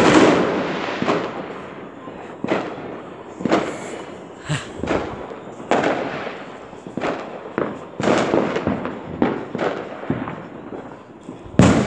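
Fireworks going off, about a dozen bangs at irregular intervals, each echoing and fading before the next.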